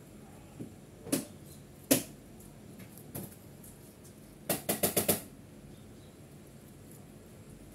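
Guinea pigs crunching crisp fresh vegetables: single sharp crunches about a second in and again a second later, then a quick run of about six crunches in the middle.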